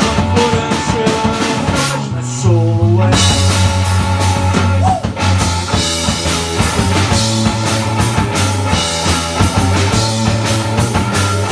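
Live rock band playing loud: electric bass, electric guitar and drum kit. About two seconds in, the drums drop out for a moment under a held bass note and a bending guitar line. The full band crashes back in about a second later.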